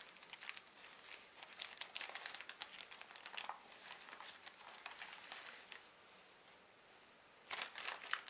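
Gift wrapping paper crinkling and rustling in quick crackles as it is carefully unfolded by hand, not torn, with a louder flurry of crackling near the end.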